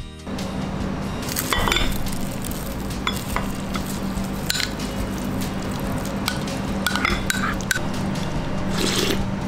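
A ceramic spoon scrapes and clinks against ceramic bowls in a few short knocks as rice is pushed from a small bowl into cold ramen soup and spooned up. Under it runs a steady low hum and hiss of the restaurant.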